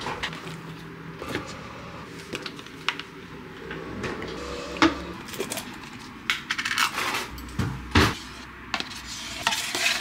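Kitchen dishes and cutlery clinking and knocking in an irregular series of sharp clicks, the loudest about five and eight seconds in.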